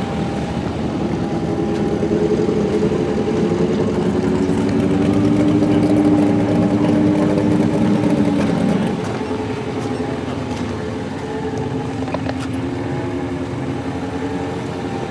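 A vehicle engine running steadily, swelling louder with a slight rise in pitch, then dropping back to a lower, quieter run about nine seconds in.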